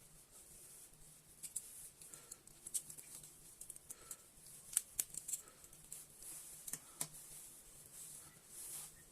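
Scattered light clicks and taps of small hard parts being handled, a few sharper ones near the middle, over a faint steady hum in a small room.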